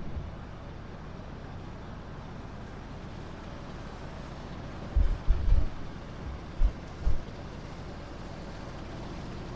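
Wind buffeting an action camera's microphone: a steady outdoor hiss with a few short low rumbling gusts, a cluster about five seconds in and two more a little later.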